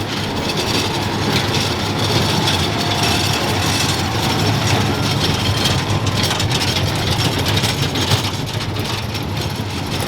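A vehicle's engine running steadily as it passes.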